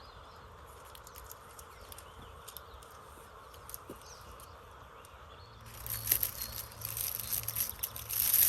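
Thin reflective mylar tape crinkling and rustling as it is handled and twisted, starting about five and a half seconds in and loudest near the end, over a low steady hum.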